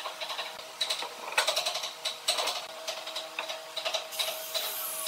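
Irregular light clicks and taps of a thin wooden stick against a plastic glue cup and the board edges as wood glue is spread, over a faint steady hum.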